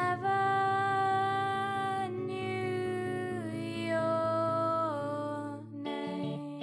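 Music: a melody line slides up into a long held note and then steps down in pitch a few times over a steady low drone. Near the end, plucked guitar notes come in.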